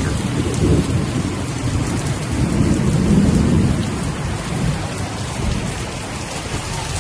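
Steady rain hissing, with a low rumble that swells about three seconds in and then fades.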